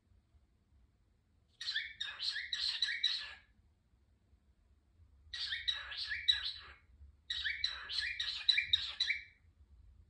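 Cockatiel chirping in three bouts of quick repeated notes, each lasting a second or two, with short pauses between.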